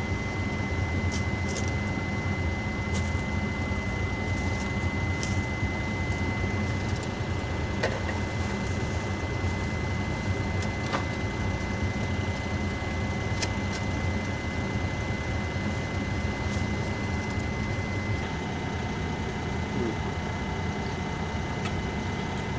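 Heavy construction machine's engine running steadily, with a thin steady high whine over it and a few light knocks.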